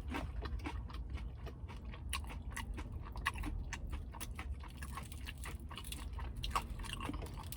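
Close-miked chewing of crispy fried chicken: an irregular run of small crunches and clicks.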